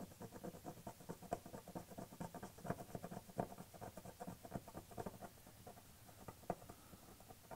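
Thumbnail scratching and picking at an adhesive-backed plastic badge letter on a car's tailgate, prying it off the paint: quick, faint, irregular scratchy clicks that thin out over the last couple of seconds.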